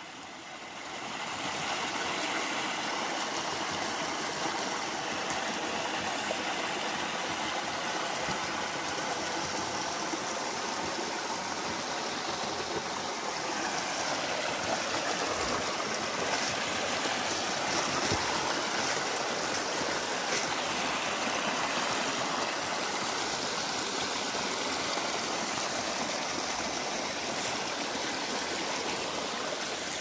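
Shallow mountain stream rushing and splashing over rocks in a steady wash of water, fading in over the first two seconds.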